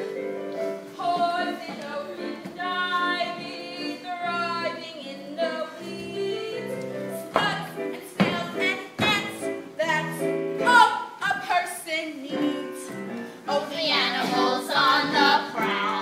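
A girl's voice singing a comic song over live instrumental accompaniment, with a few sharp hits around the middle.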